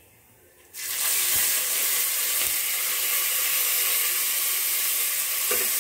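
Fresh curry leaves dropped into hot tempering oil with cumin and asafoetida, bursting into a loud sizzle just under a second in that then carries on steadily as the leaves fry.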